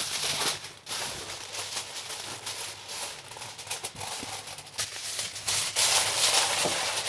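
Aluminium foil crinkling and rustling as it is pressed and wrapped over a biryani pot to seal it for dum cooking.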